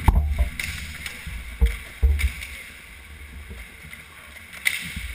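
Low knocks and rumbles, strongest near the start and around two seconds in, as the roller-hockey goalie shifts in the crease against the net carrying the camera. A sharp clack comes about four and a half seconds in, over the general rink noise.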